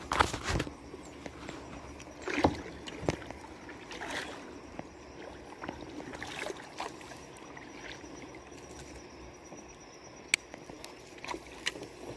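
Kayak paddle strokes in river water: irregular splashes a second or more apart over a faint steady wash of water.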